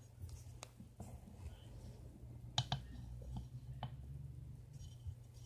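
A spoon knocking against a bowl while cornstarch and water are stirred into oobleck: a few faint, scattered clicks, two close together about halfway through, over a low steady hum.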